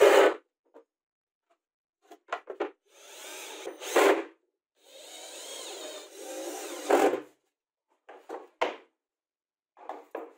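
Cordless drill/driver running into laminated chipboard in two bursts, about one and two seconds long, each ending in a louder moment as the bit bites home. Short clicks and knocks of the boards and drill being handled fall between them.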